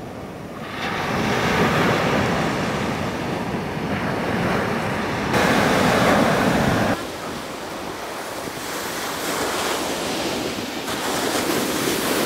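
Ocean surf breaking on a beach: a steady rushing wash of noise that jumps in level and tone abruptly several times. It is loudest for a couple of seconds just past the middle, then drops sharply.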